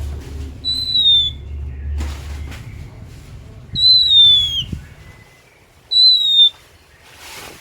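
Oriental magpie-robin (kacer) singing: three loud, clear whistled notes, each falling slightly in pitch and lasting about half a second, spaced a couple of seconds apart. A low hum runs underneath and stops about five seconds in.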